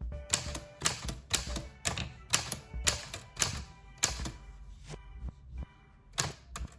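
1940s Smith Corona Speedline manual typewriter being typed on: typebars striking the platen in an irregular run of keystrokes, a few per second. There is a pause of about a second and a half past the middle, then two more strokes near the end.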